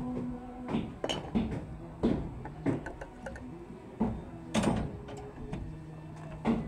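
Irregular knocks and clacks as orange plastic electrical conduit is handled and worked against a steel rebar mesh, each knock brief with a short ring.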